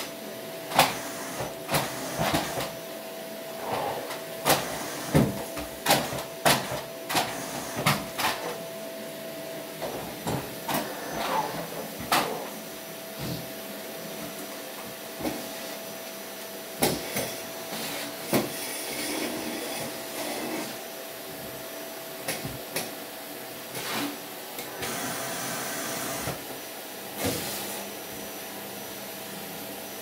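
Vacuum cleaner running steadily with a thin whine, while the wand and nozzle knock and bump repeatedly as the floor is vacuumed, the knocks coming most often in the first half.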